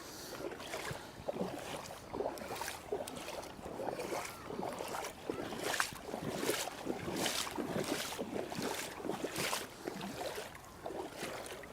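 Legs wading through knee-deep floodwater, a splashing swish with each stride, repeating about every three-quarters of a second.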